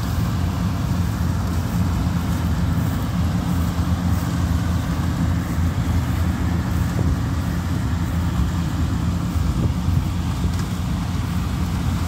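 Kubota DC-95 combine harvester's diesel engine and threshing gear running steadily while it cuts rice, a continuous low drone.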